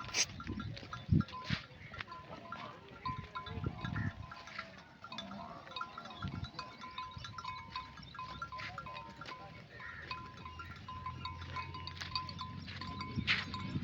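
Sheep bells on a grazing flock clinking irregularly, many small strikes ringing together, with a sheep bleating about five seconds in.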